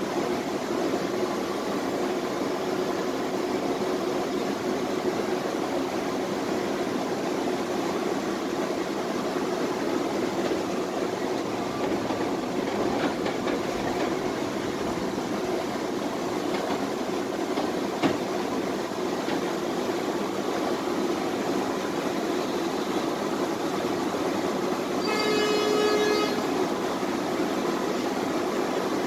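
Tatra T3SU tram running between stops, heard from inside the car, with a steady running noise of wheels and motors. A single knock comes about 18 seconds in, and a horn sounds for about a second near the end.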